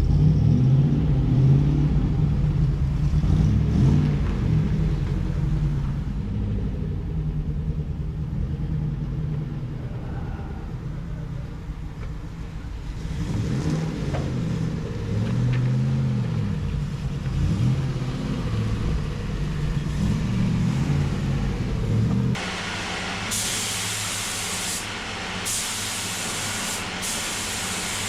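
An engine running, its pitch rising and falling as it is revved. About 22 seconds in it cuts to a steady hiss with several short on-off bursts of spraying, like a spray gun.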